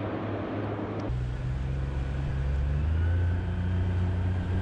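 After about a second of even wind and water noise, a tiller-steered outboard motor runs at speed as the boat heads off, a steady low engine note that rises slightly about two seconds in.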